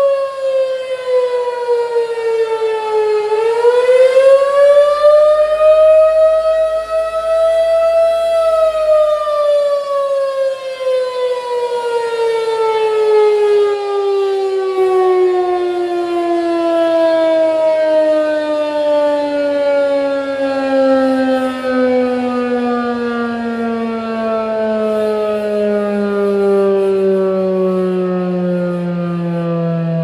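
Federal Signal 2001-SRNB outdoor warning siren sounding the attack signal. Its pitch dips and rises once in the first few seconds, then falls steadily and slowly for the rest of the time as the siren winds down to a low tone.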